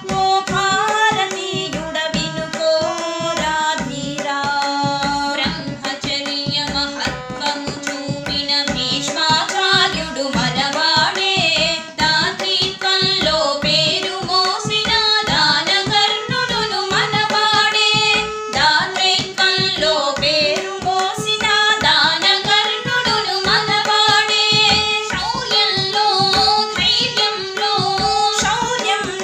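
Women singing a Telugu patriotic song to harmonium and tabla: held harmonium notes under the melody and a steady, busy run of tabla strokes throughout.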